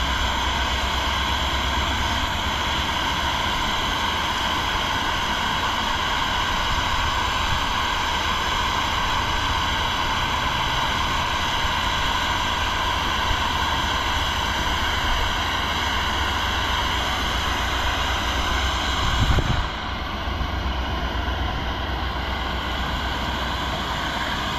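Steady rush of river water flowing around a rock. About 19 seconds in there is a brief thump, after which the sound turns a little duller.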